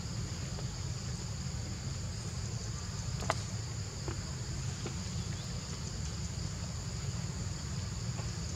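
Steady high-pitched insect chorus, sitting in two even bands, over a low steady rumble; a single sharp click a little after three seconds in.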